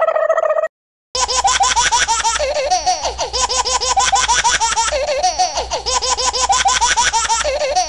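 A steady high tone stops under a second in. After a brief silence, a child's laughter sound effect starts, with rapid repeated giggles.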